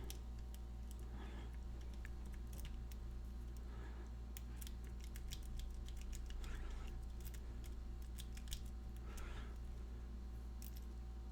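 Faint, irregular clicks and scrapes of a lock pick working the pins of a Master Lock 220 padlock held in hand, over a steady low hum.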